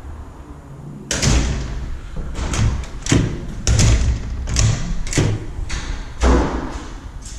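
Aluminium foyer door with a mortise lock and electric strike being worked: a run of about ten sudden thuds and knocks, starting about a second in, as the door closes and its latch meets the strike.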